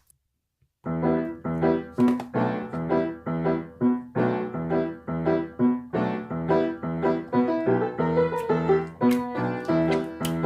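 Piano played by hand: after a short pause of under a second, the playing resumes with a steady, evenly paced run of notes.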